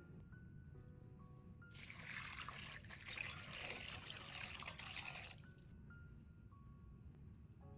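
Water running for about four seconds, starting about two seconds in and stopping sharply, over soft background music with light mallet-like notes.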